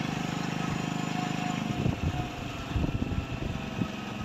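Motorcycle engine running steadily while riding, with a fast, even pulse. From about two seconds in, a run of irregular low thumps and knocks sounds over it.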